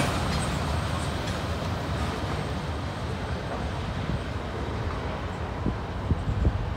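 Freight train of covered hopper cars rumbling away down the track after its last car has passed, a steady low rumble with the higher sound fading as it recedes.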